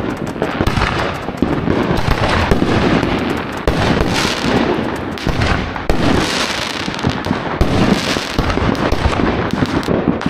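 Consumer fireworks going off: a dense, unbroken mix of bangs, pops and crackling, with louder clusters of bursts every couple of seconds.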